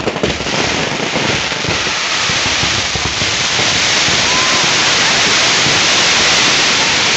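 Fireworks going off in a dense barrage: a sudden burst of sharp cracks that builds within a few seconds into a constant loud crackle and hiss of many small bangs at once.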